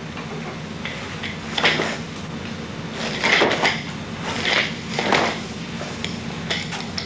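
Nunchaku being swung in a kata: several short swishes through the air, about a second apart, with clacks of the sticks, over a steady background hiss.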